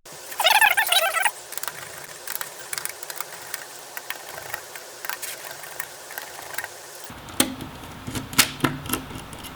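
Small screws being taken out of a laptop chassis: a short buzzing whir about half a second in, then light clicks and taps of the screwdriver and screws on the case, with a few sharper clicks near the end.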